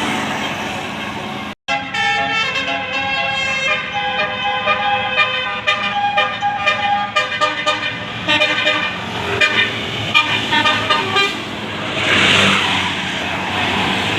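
Tour bus's telolet basuri musical air horn playing a tune of stepped, held notes, after a momentary gap about a second and a half in. Near the end the horn gives way to a short burst of hissing noise.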